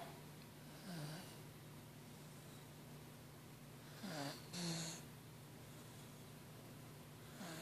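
A sleeping corgi snoring: a faint snore about a second in, a louder two-part snort-like snore about four seconds in, and another beginning near the end, each starting with a short falling glide. A steady low hum runs underneath.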